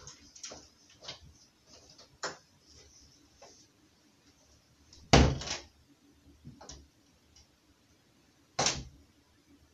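A door being shut and locked: a run of light clicks and knocks, then two louder sharp knocks, one about five seconds in and one near the end.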